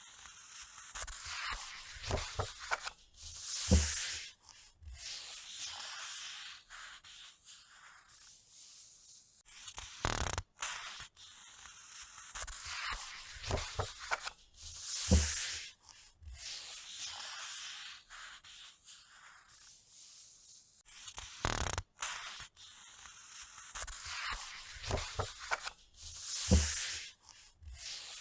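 Crisp scratching and rubbing sounds with scattered clicks, in a loop that swells loudest about every eleven seconds.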